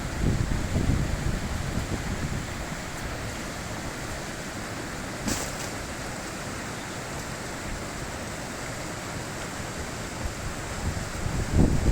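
A high-mountain river rushing steadily, with low gusts of wind buffeting the microphone near the start and again near the end, and a single brief click about five seconds in.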